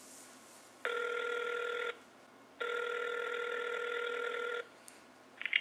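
Telephone ringback tone heard through a phone's speaker while an outgoing call rings: two steady rings, the first about a second long and the second about two seconds.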